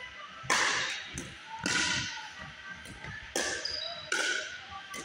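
Pickleball rally: four sharp pops of the hard plastic ball struck by paddles and bouncing, spaced unevenly about a second apart, each ringing out in the gym's echo.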